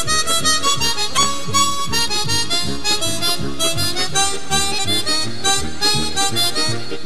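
Background music led by a harmonica over a steady rhythmic accompaniment.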